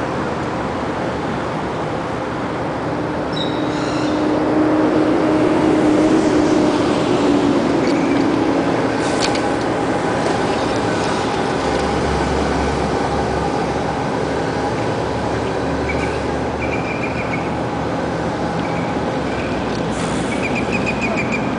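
Steady traffic rumble from road vehicles, with one passing vehicle swelling louder about four to eight seconds in.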